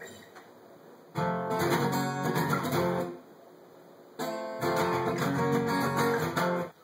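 Guitar chords strummed in two short phrases with a brief pause between them, after about a second of quiet.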